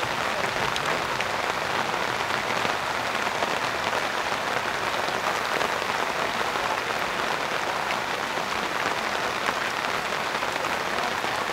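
Steady rain falling, a continuous hiss of many small drop hits.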